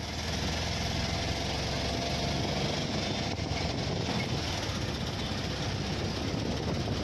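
Auto-rickshaw's small engine running steadily with rattle and road noise, heard from inside the open cab on the move.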